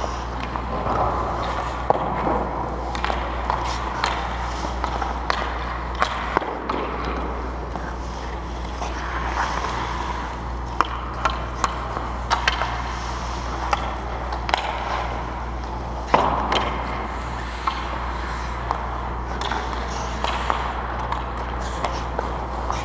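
Hockey skates scraping and carving on the ice, with sharp clacks of sticks and puck scattered throughout, the loudest about two-thirds of the way in. A steady low hum runs underneath.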